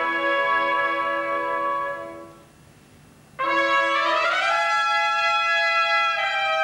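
Two trumpets playing held notes in harmony that fade away about two seconds in; after a brief pause they come back in together sharply, one part sliding up in pitch, and hold new notes.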